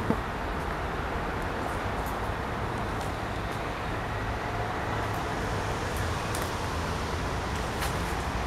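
Steady low rumble of city traffic, with one sharp knock right at the start and a few faint high ticks later on.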